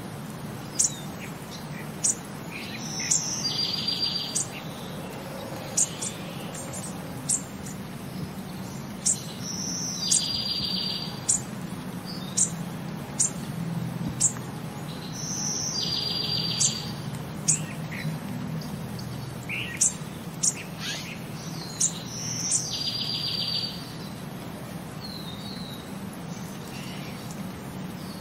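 Small birds chirping and trilling over a steady low hum, the same pattern of calls coming round about every six seconds, as in a looped nature-sound track.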